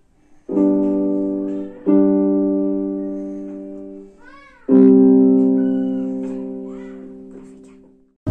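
Yamaha portable keyboard played with a piano voice: three held chords struck one after another, each left to ring and die away, the last sustained for about three seconds until it fades out.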